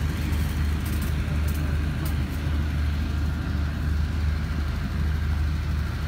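Steady low hum of a running engine, with a few faint clicks about one to two seconds in.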